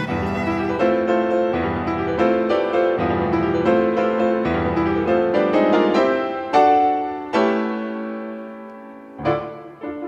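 Instrumental background music, a violin melody with piano; past the middle a few struck notes ring out and die away.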